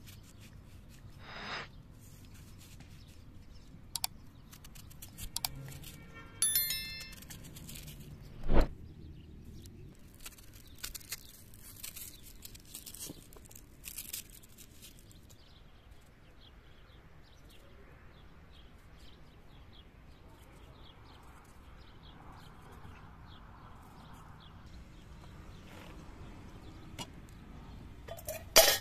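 Kitchen knife cutting into a peeled onion held in the hand: scattered crisp cutting clicks, with a ringing clink about six and a half seconds in and a louder knock about eight and a half seconds in. A sharp knock near the end.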